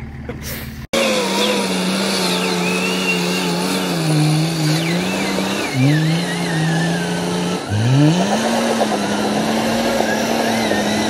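Nissan Patrol four-wheel drive's engine working hard under load as it crawls up a steep, rutted dirt climb. It cuts in abruptly about a second in, and the revs drop and climb back quickly twice, about halfway through and again two seconds later.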